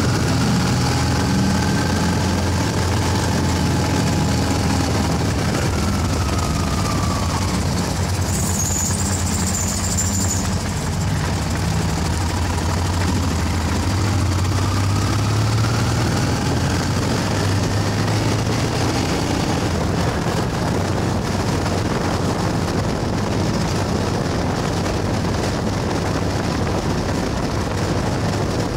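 Honda Transalp XL600V V-twin motorcycle engine running steadily while riding along a road. A brief high whistle comes about eight seconds in.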